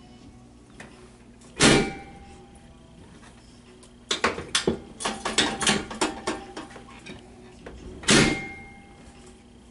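Chiropractic adjustment on a treatment table: two heavy thumps about six seconds apart, with a quick run of a dozen or so sharp clicks and knocks between them.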